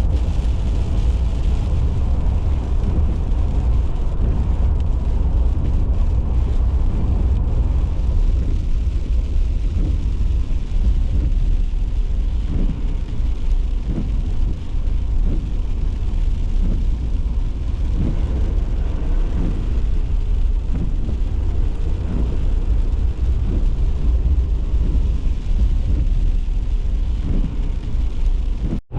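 Steady low rumble of a vehicle on the move, with brief irregular surges of noise through the second half.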